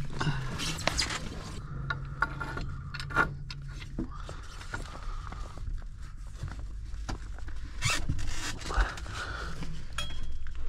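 Scattered scrapes, clicks and knocks of hands and tools working on plumbing pipe. A low steady hum fades out about four seconds in.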